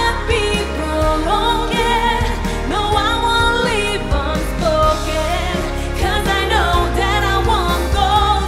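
A female solo vocalist sings a pop song live over a loud backing track, with steady bass and accompaniment. The backtrack carries her recorded vocal so loudly that it sounds like two of her singing at once, the backtrack fighting the live voice for attention.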